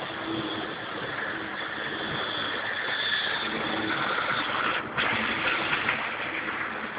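Model train running along its track, close to the microphone: the small electric motor and wheels make a steady running noise that grows louder through the middle, with a brief break about five seconds in.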